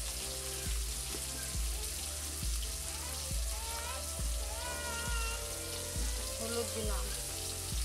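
Food sizzling as it fries in oil in a kadai, a steady hiss. Background music with a steady deep beat, a little under once a second, plays over it.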